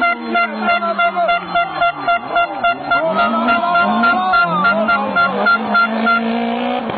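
Rally car engine revving up and down through gear changes. Over it, a horn toots in short, even beeps about three times a second until about six seconds in.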